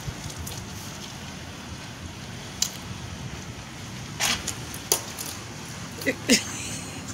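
Steady outdoor background hum broken by a few short clicks and a breathy rush about four seconds in, then two brief voice sounds near the end.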